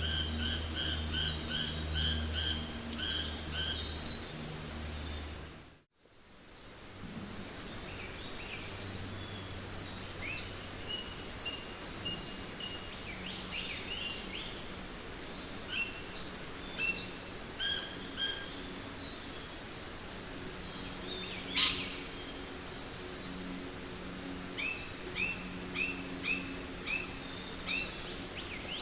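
Jungle ambience: many birds chirping and calling in quick repeated notes over a steady background hiss, with a low hum under the first few seconds. The sound dips out briefly about six seconds in, then the birdsong resumes, with one loud, sharp call about two-thirds of the way through.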